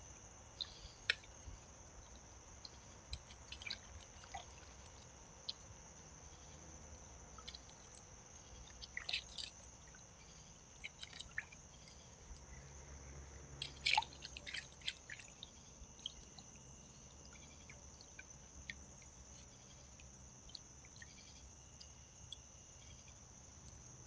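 Faint, scattered splashes, drips and clicks of a raccoon dabbling its paws in the water of a shallow birdbath, denser around the middle, over a steady high hiss.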